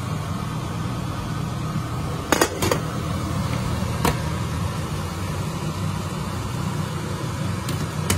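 Glass pot lid clinking against a steel cooking pot as it is lifted and moved with an oven mitt: two quick clinks about two and a half seconds in, another at four seconds, and one near the end. Under them runs a steady low hum.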